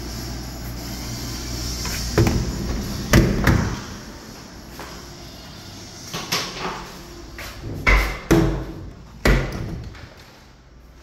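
A run of about eight sharp thuds and knocks, several in close pairs, over a steady low hum that fades away near the end.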